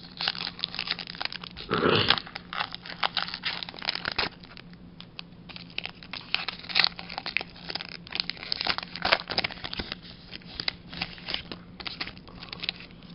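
Foil booster pack wrapper crinkling and being torn open, with a louder tear about two seconds in, followed by more crinkling.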